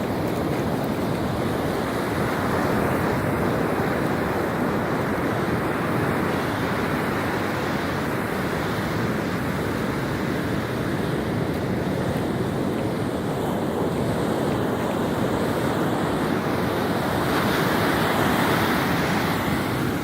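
Ocean surf breaking on a beach, stirred up by an approaching hurricane, with wind buffeting the microphone; a steady rush with slow swells in loudness.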